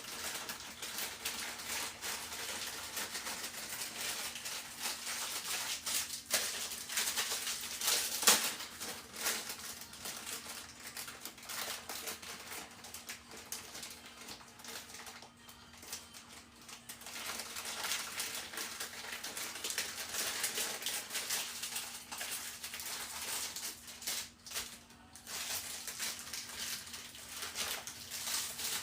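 Pokémon trading cards and their plastic wrappers being handled and flipped through: continuous rustling, crinkling and small clicks, with a sharper click about eight seconds in. A faint steady hum runs underneath.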